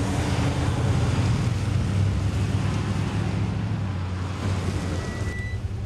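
Street traffic: a truck's engine running with road noise, a steady low rumble under a wash of traffic hiss.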